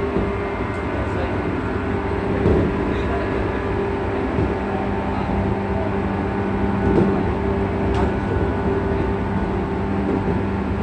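Running sound from inside a 415 series electric train car, MoHa 415-1517. Its MT54 DC traction motors and gearing hum at a steady pitch while the train runs at constant speed, over a low rumble of wheels on track, with a few knocks.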